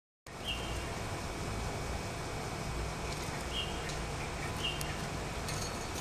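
A budgerigar gives three short chirps, about half a second, three and a half and four and a half seconds in, with a few faint clicks between them, over a steady low background hum.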